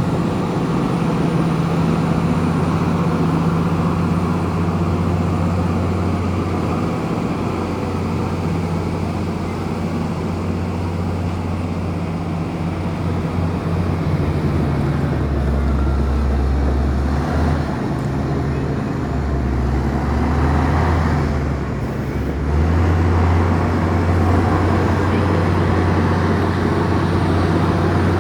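Komatsu bulldozer's diesel engine running under load while pushing dirt, a steady low drone that drops in pitch and wavers for several seconds past the middle, then comes back a little louder.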